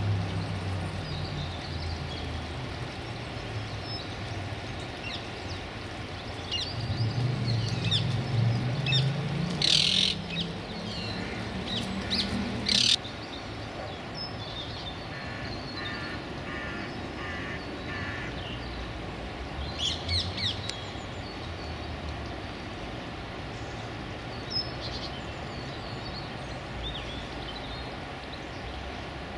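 Wild birds calling in the background, with short scattered calls, two louder calls about ten and thirteen seconds in, and a quick run of repeated notes a little later. Underneath runs a steady low hum that swells and then drops away suddenly about thirteen seconds in.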